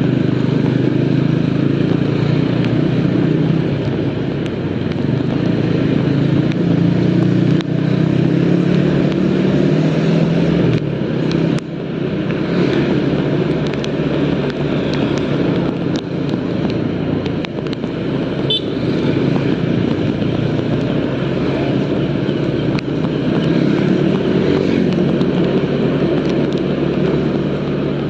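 Motorcycle engine running under way, its pitch rising and falling with the throttle and dipping briefly near the middle. Underneath is a steady hiss of wind and tyres on a wet road.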